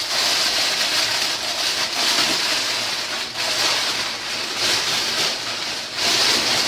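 Aluminium foil crinkling and rustling as it is pressed down to cover a turkey in a tray: a dense crackle.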